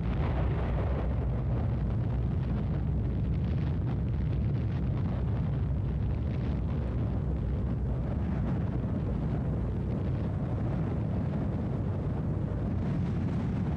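Sound effect of an atomic bomb explosion: a continuous deep, rumbling blast noise that holds at a steady, loud level.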